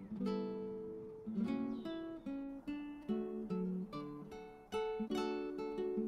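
Background music: an acoustic guitar picking a steady run of plucked notes.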